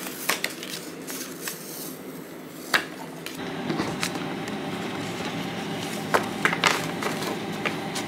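Small paper cards being handled and stacked on a cutting mat, with a scattering of crisp paper clicks and taps. From about three seconds in, a steady low hum runs underneath.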